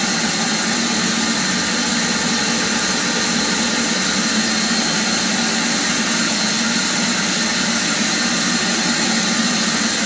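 Hart 6-gallon stainless steel wet/dry shop vacuum running steadily: an even rush of air from its motor with a high whine over it.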